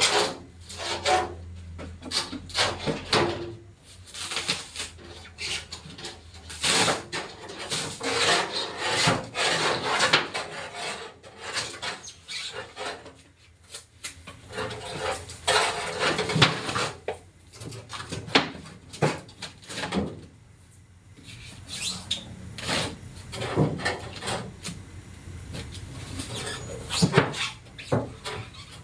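Irregular scraping, rubbing and knocking of hand work on a two-door refrigerator's body being dismantled.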